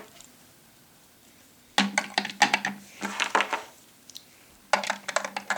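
Small plastic toy figures and play-set pieces being handled, clicking and clattering against one another in three short clusters.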